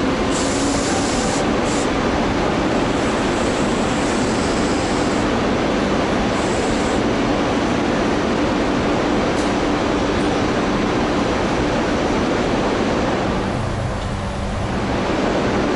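ChS200 electric locomotive standing with its machinery running: a loud, steady rushing noise with a low steady hum, dipping briefly near the end.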